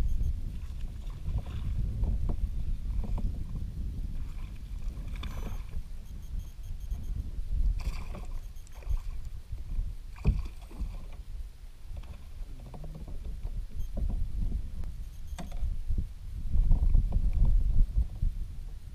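Water sloshing around a kayak under a low, steady rumble, with a few sharp knocks and splashes as a hooked largemouth bass is fought beside the kayak and lifted aboard.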